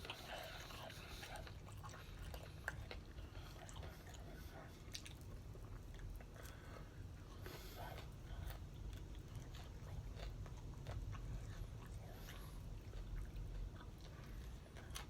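Close-up eating sounds of spicy chicken wings: quiet chewing with small crunches and wet clicks, over a steady low hum.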